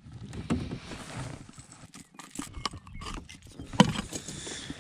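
Handling noise from a just-landed largemouth bass and metal fishing pliers in a kayak: scattered clicks, clinks and knocks at no steady rhythm, with one sharp click near the end the loudest.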